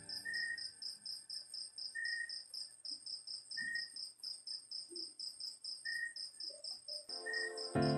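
Crickets chirping in a steady rhythm, about four to five short high chirps a second, with a lower chirp repeating every second or so. Electronic keyboard music comes back in just before the end.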